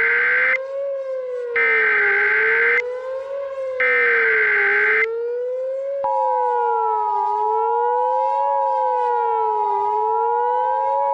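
Emergency Alert System broadcast tones over a wailing siren that slides up and down about every two and a half seconds. Three short bursts of warbling digital header data come about two seconds apart. Then, about six seconds in, the steady two-tone EAS attention signal begins and holds, announcing a tornado emergency.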